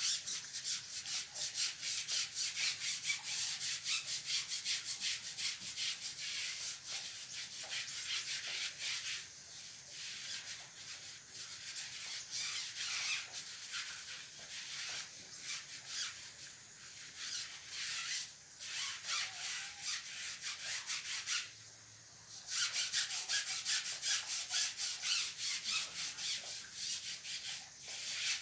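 Fast back-and-forth scrubbing on a rubber tyre, several scratchy strokes a second. It goes softer through the middle, stops briefly about three quarters of the way through, then resumes hard.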